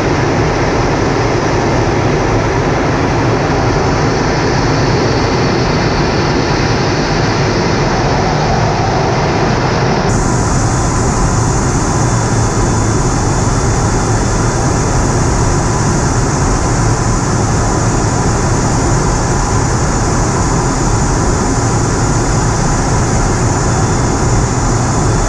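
Steady drone of engines and rushing air heard inside a large aircraft's cabin in flight. Its hiss turns suddenly brighter about ten seconds in.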